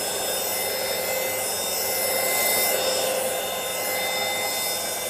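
Airbot Supersonics Aura cordless stick vacuum cleaner running: a steady rush of air with several high, steady motor whines, swelling slightly in the middle.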